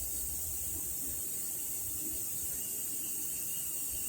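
Steady background hiss with a faint low hum, with no distinct event: room tone.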